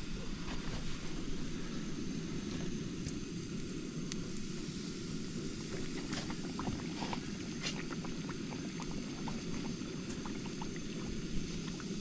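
Doughnuts frying in very hot oil in a cast-iron skillet: irregular crackles and pops over a steady low rush from the propane camp-stove burner.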